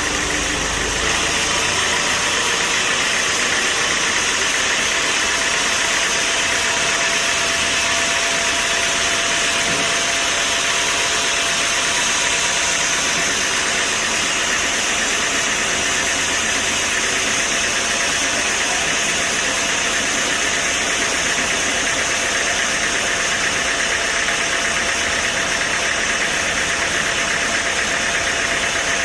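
Sawmill machinery running steadily: a loud, even mechanical noise with a constant thin whine.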